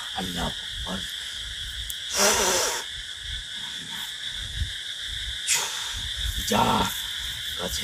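Night insects chirring steadily at one high pitch, with a few sharp breathy hisses of a man's forceful exhalations, the loudest about two seconds in and two more near the end.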